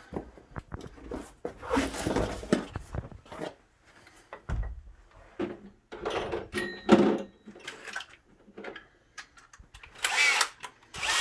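Hand tools being handled at a wooden door jamb: irregular clicks, knocks and scraping, with the loudest knock about seven seconds in.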